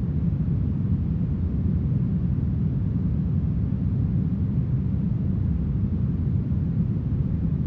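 Smoothed brown noise: a steady, deep rush with most of its weight in the bass and only a faint hiss above, unchanging throughout.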